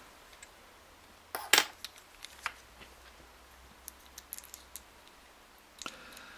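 Scattered small metallic clicks and ticks of brake plate screws and a Daiwa 7HT reel's side plate being handled and set in place by fingers, the loudest pair about one and a half seconds in.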